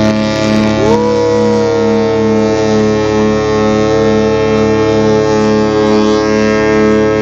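The Celebrity Solstice cruise ship's horn giving one long, loud blast as the ship departs: a deep chord of steady tones, with a second, higher tone sliding up about a second in and holding.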